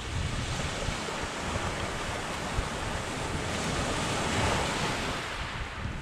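Sea surf washing on the shore, with wind rumbling on the microphone. The wash swells louder about four seconds in and eases off near the end.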